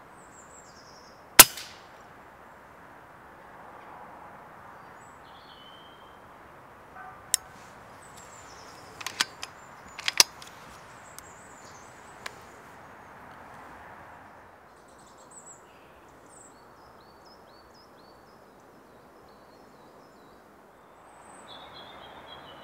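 A single sharp crack of a silenced FX pre-charged air rifle firing about a second and a half in. It is followed several seconds later by a short run of lighter clicks and knocks, with small birds chirping faintly throughout.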